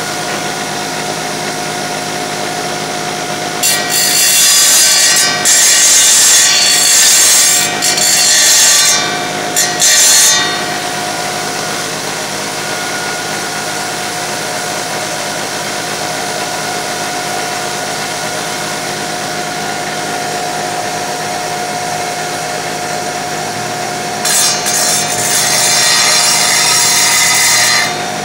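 Tile saw running steadily with a hum, its blade grinding into a tile in short repeated passes while cleaning out a corner cut: a run of passes a few seconds in and another near the end.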